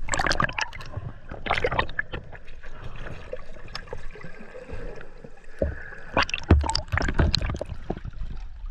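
Water sloshing and gurgling with irregular clicks and knocks. These come in clusters at the start, about a second and a half in, and again through the last three seconds, with a few low thumps about six seconds in.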